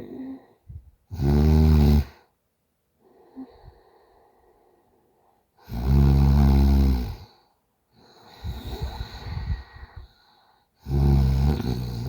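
A woman snoring in her sleep after a few drinks: three loud snores, each about a second long and about four to five seconds apart, with a softer, noisy breath out between the last two.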